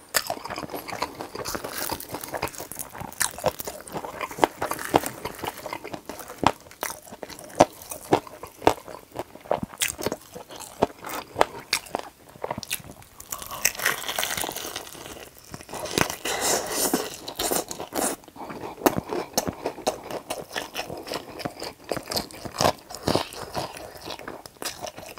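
Close-miked biting and chewing of a crispy fried chicken drumstick: repeated sharp crunches of the battered skin, with a dense run of crunching about halfway through.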